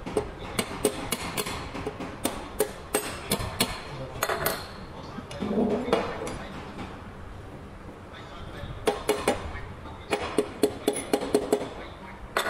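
Sharp metallic taps and clinks of hand tools against a tractor dual-clutch pressure plate while its release fingers are being set. The taps come in two runs of quick strikes, one in the first third and another near the end.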